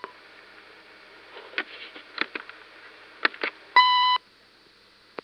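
A single short electronic beep, one steady high tone of under half a second, about four seconds in, heard over a phone-call recording with its thin line hiss; a few faint clicks come before it.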